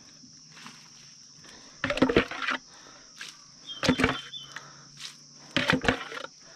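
Insects buzzing steadily and high-pitched, with three brief, louder close-up noises about two, four and five and a half seconds in.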